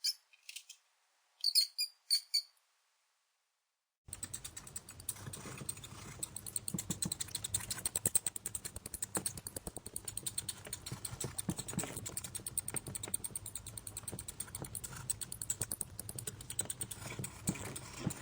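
Cat-game sound effects: a few short, high squeaks like a mouse in the first couple of seconds, then silence. A dense, steady run of rapid small clicks and scratches starts about four seconds in and continues.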